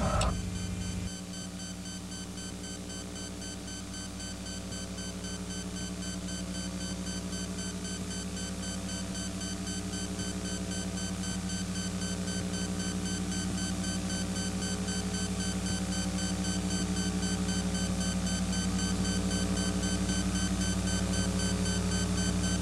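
Steady electrical hum of several fixed tones with no programme sound, slowly getting louder: the buzz on a blank stretch of the broadcast tape's audio track. The preceding sound cuts off about a second in.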